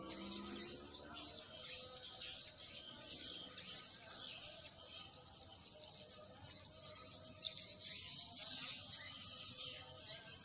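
Many swiftlets chirping and twittering together, a dense, continuous high-pitched chatter.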